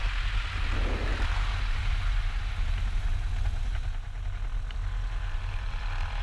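Cessna 182P Skylane's 270-horsepower P.Ponk-upgraded piston engine and propeller running at low taxi power, a steady low drone with a hiss on top that eases about four seconds in.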